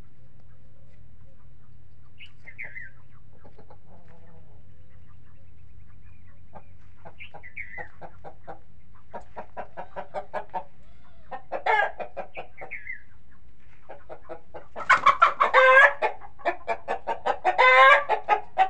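Chickens clucking: quiet at first, then runs of quick clucks from about seven seconds in, growing louder into loud, drawn-out cackling calls in the last few seconds.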